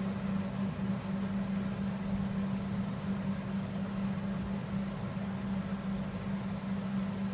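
Steady low hum over an even background hiss, unchanging throughout: room tone of a running fan or appliance.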